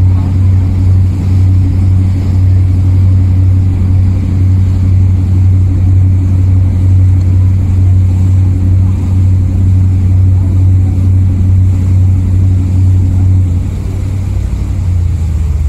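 Motorboat engine running steadily under way, a deep, even drone. A little before the end its note drops lower and quieter.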